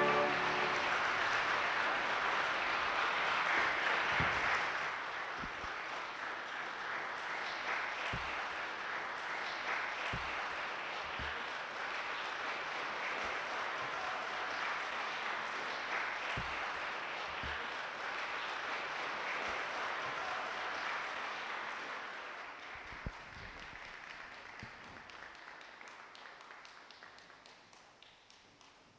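Audience applauding after a trumpet piece. The clapping is fullest at first, then thins out and dies away over the last few seconds.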